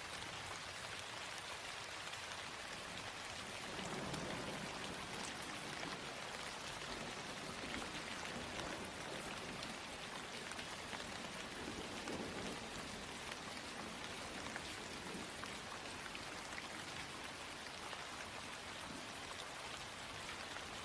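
Steady rain, a background rain ambience, with a few faint low swells now and then.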